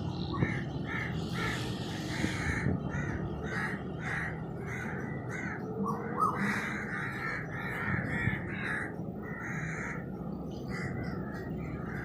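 Crows cawing over and over in a rapid series of harsh calls, about two or three a second, with a short pause near the end, over a steady low background noise.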